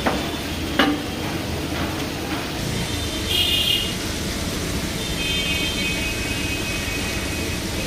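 Chicken pieces deep-frying in a large steel karahi of bubbling oil, a steady sizzle, with a single sharp metal clink of the skimmer on the pan just under a second in. A brief high-pitched tone sounds about three seconds in, with fainter high tones later.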